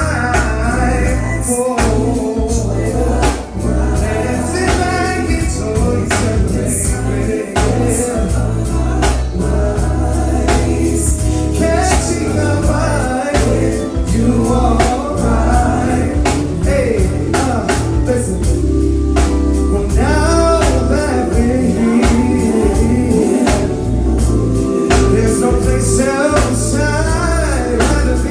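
A live band playing a song with a singer, drum kit and a heavy, sustained bass line, the drums hitting steadily throughout.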